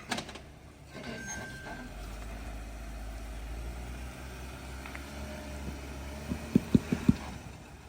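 Off-road vehicle's engine running low and steady, crawling over rock, with a quick run of four or five sharp knocks near the end.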